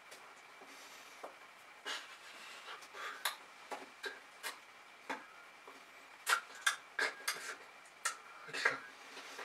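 Irregular soft clicks, taps and smacks from a person signing: hands striking and brushing together and lip and tongue sounds from silent mouthing, coming thicker from about six seconds in. A faint steady high whine runs underneath.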